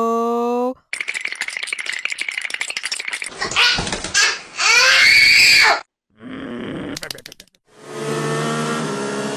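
A string of cartoon sound effects. A held chime-like tone cuts off about a second in, followed by a rapid rattle and then gliding, laugh-like voice effects. A short burst of noise follows, and another held tone begins near the end.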